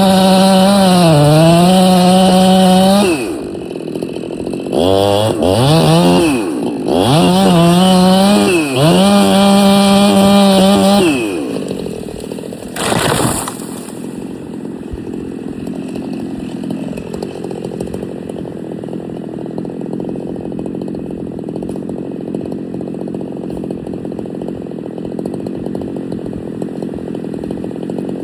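Chainsaw running hard through a back cut, its engine note rising and falling, dipping twice and then easing off about eleven seconds in. About a second later comes a short loud burst lasting roughly a second as the stem comes down, followed by a steady lower noise.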